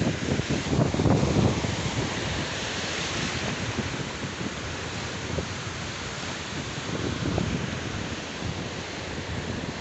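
Small sea waves breaking and washing up over a sandy shore, a steady surf hiss, with wind buffeting the microphone in gusts, strongest about a second in and again around seven seconds.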